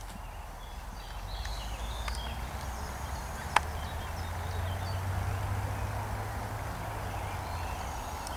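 Outdoor field ambience: a steady low rumble with a few faint high chirps, and one sharp click about three and a half seconds in.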